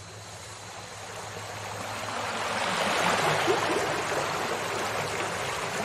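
Rushing water that swells in loudness to a peak about three seconds in, then slowly fades, with a faint low steady hum beneath.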